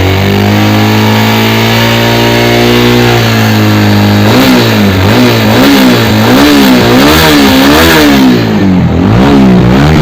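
A TVS Apache RTR 200 4V's single-cylinder four-valve engine idles steadily, then from about four seconds in is blipped with the throttle over and over, rising and falling about one and a half times a second. The engine has just been rebuilt and runs smoothly, free of the rattling noise it was brought in for.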